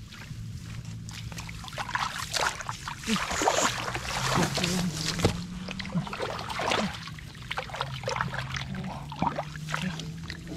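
Hands splashing and sloshing in shallow field water, in irregular splashes that are heaviest from about three to five seconds in, over a low steady hum.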